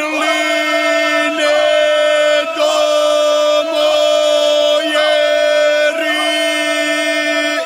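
Ganga, the unaccompanied traditional folk singing of the Imotski region of Croatia: voices sing together in long, loud, held notes, with the line breaking and shifting about once a second.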